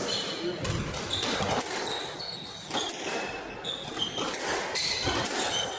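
Squash rally: repeated sharp smacks of the ball off rackets and the court walls, mixed with short high squeaks of players' shoes on the wooden floor.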